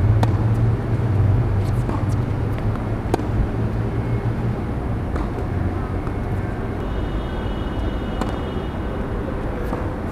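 Tennis ball struck by rackets and bouncing, a few sharp pops a second or more apart, over a steady low hum of background noise.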